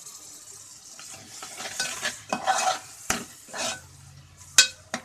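Metal spoon stirring tomato and chilli paste into sizzling onion and spice masala in a metal pot. Several scraping strokes begin about a second in. Two sharp clinks of the spoon against the pot follow, the louder one near the end.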